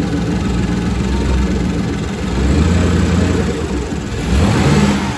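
Inboard marine engine running on a test run, its speed swelling and falling back twice, about two and a half seconds in and near the end. The engine is being starved for fuel, which the owner puts down to a faulty low-pressure fuel pump.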